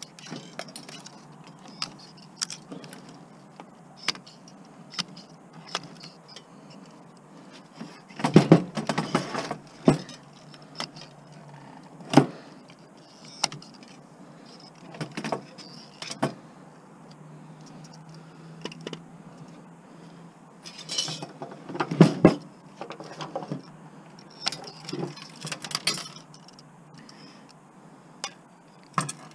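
Clicks and clinks of locking pliers and small metal parts as a rear-projection TV's metal chassis is pried apart by hand. There are two longer bursts of metal rattling, about eight seconds in and again around twenty-one seconds.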